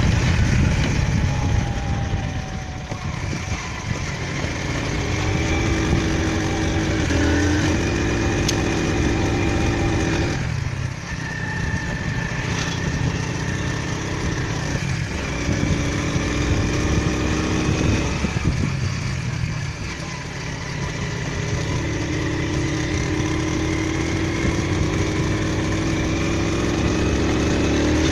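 A vehicle engine running steadily, its pitch rising and falling as it speeds up and slows, easing off briefly about ten and again about twenty seconds in.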